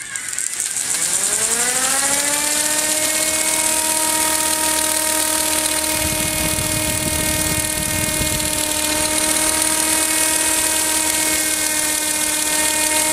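Electric motor driving a K'NEX spinning-ride model: a whine rising in pitch over the first two seconds as the ride spins up, then holding steady, with a hiss of gear noise above it. A low rumble joins about six seconds in for a couple of seconds.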